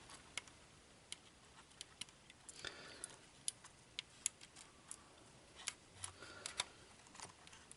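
Faint, irregular light clicks and taps of small plastic model parts being handled and fitted into place.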